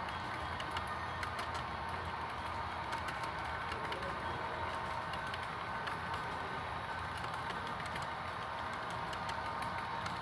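Model train cars rolling past on the layout track: a steady rolling rumble with many small, irregular clicks from the wheels running over the rail joints.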